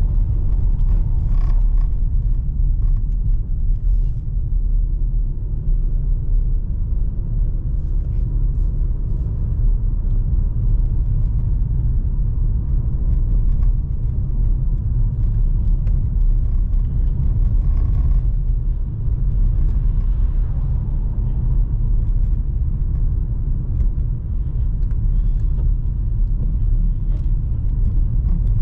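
Steady low rumble of a 2020 Mercedes-AMG C43 on the move, its 3.0-litre twin-turbo V6 running under road noise, with a few faint ticks.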